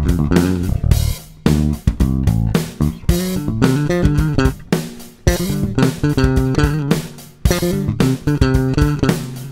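Five-string jazz-style electric bass played unaccompanied: a line of separate pitched notes in phrases, with a few brief gaps between them.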